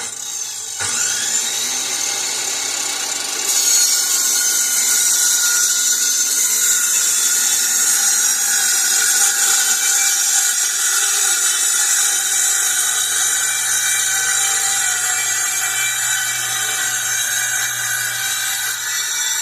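Handheld electric power tool running continuously with a high, steady motor whine. It starts abruptly, gets louder about a second in and again near four seconds, then holds steady.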